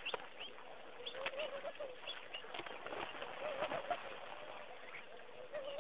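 Doves cooing in a repeated wavering phrase, with short higher bird chirps over it and some water splashing.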